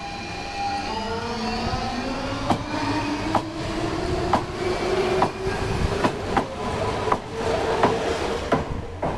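Copenhagen S-train electric multiple unit pulling out and accelerating, its traction motors whining as they rise in pitch. Its wheels clack over rail joints, the clacks coming faster as it gathers speed.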